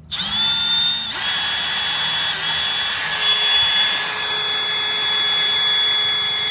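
Power drill running steadily with a high whine, drilling a hole in a Honda Civic to mount a seat; it starts right away and settles to a steady speed about a second in.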